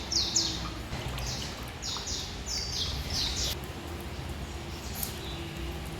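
A bird calling in a quick series of short, high, falling chirps that stops about three and a half seconds in, over a low steady background hum.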